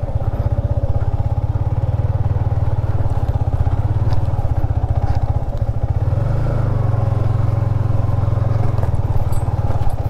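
Yamaha MT-15's 155 cc single-cylinder engine running steadily as the bike rides along, its note shifting slightly just past the middle.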